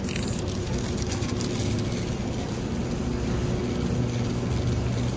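Loaded shopping cart's wheels rolling over a concrete floor, a steady low rumble.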